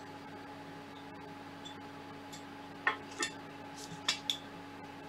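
A handful of short metallic clinks and taps as a black aluminium extrusion is fitted against the Prusa i3 MK3S's aluminium frame, clustered in the second half, over a steady faint hum.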